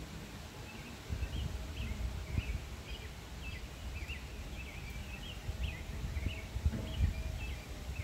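Wind gusting on the microphone as a low, uneven rumble that picks up about a second in. Through it a small bird twitters a quick string of short, high chirps.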